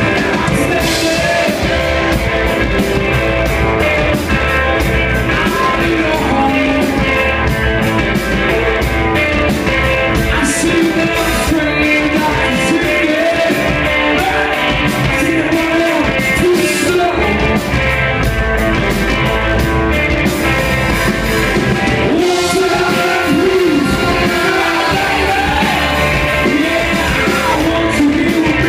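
Live rock band playing: a lead singer sings over electric guitars and drums, loud and without a break.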